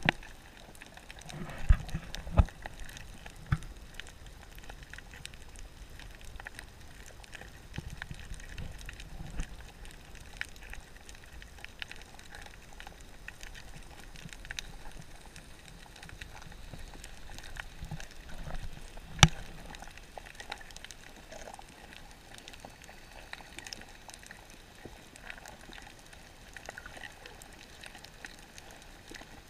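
Underwater sound picked up by a GoPro in its waterproof housing: a steady faint crackle of small pops and clicks, with a few sharp knocks, two close together about two seconds in and a single loud one near the middle.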